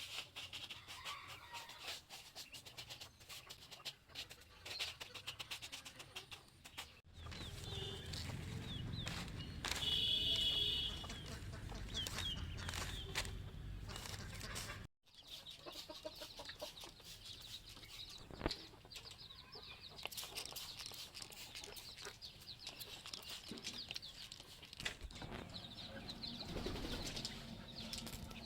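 A crowd of young chicks peeping, a dense, steady mass of short high calls, with scattered clicks and rustles. A low rumble sits underneath for several seconds in the middle, and the sound breaks off abruptly twice.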